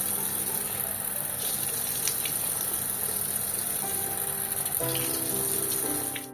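Water running steadily from a tap, a continuous hiss that cuts off abruptly at the end.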